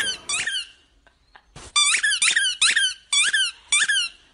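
A dog chomping on a squeaky ball toy held in its mouth, squeaking it over and over, about two high squeaks a second, each dropping in pitch, with a pause of about a second near the start.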